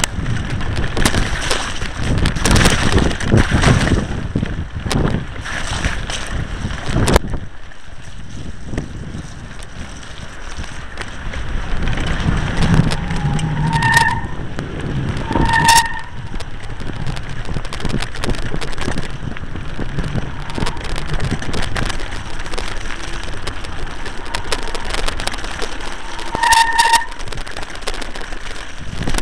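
Wind buffeting the microphone of a camera mounted on a mountain bike as it rides down a wet, rocky track, the bike rattling and jolting over stones and gravel. There are three short high squeals, two near the middle and one near the end.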